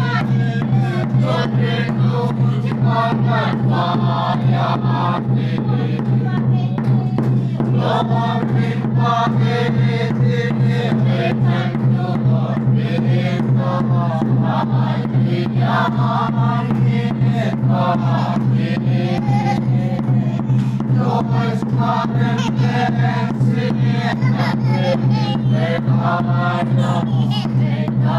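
A small congregation singing a hymn together in unison, over a quick, steady beat.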